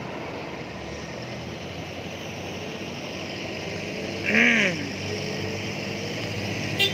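Steady background engine noise of airport apron traffic, slowly growing a little louder, with a short rising-and-falling vocal sound about four seconds in and a click near the end.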